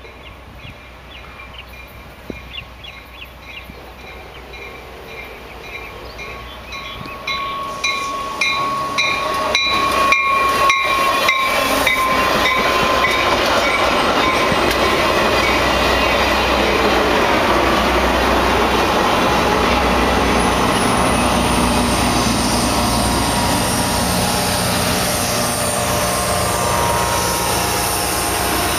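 Caltrain commuter train of bilevel cars with an EMD F40PH diesel locomotive approaching and passing close by. Regular wheel clicks come first. A high steady tone rings for a few seconds about eight seconds in. From about twelve seconds the passing cars make a loud, steady rush of wheels on rail with a low diesel rumble underneath.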